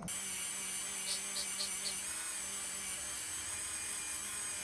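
Motorized wire brush wheel running steadily, used to scrub rust off a pocket knife, with a few short high scratches about a second in.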